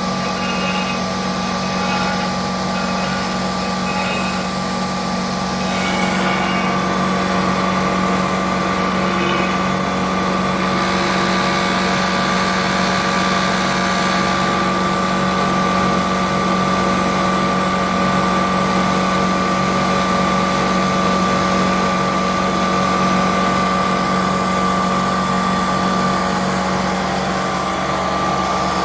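Milling machine running steadily while machining a bicycle sprocket, with a constant motor hum. A higher steady tone comes in about six seconds in and fades near the end.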